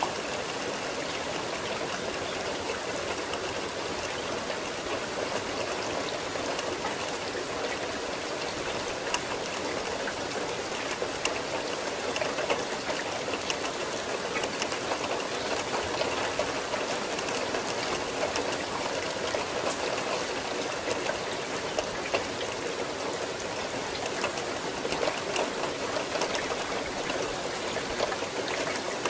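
Steady rain falling: an even, unbroken hiss with scattered sharper ticks of single drops landing.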